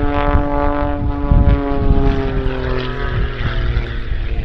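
Pitts S-2S aerobatic biplane's six-cylinder Lycoming 540 engine and propeller in flight, its note sliding steadily lower in pitch and fading over about three seconds.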